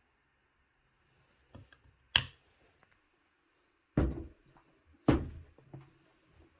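Kitchen objects being handled and set down: a sharp clack about two seconds in, then two heavy thuds about a second apart.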